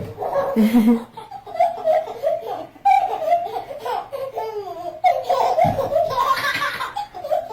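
A young child laughing hard in repeated bouts.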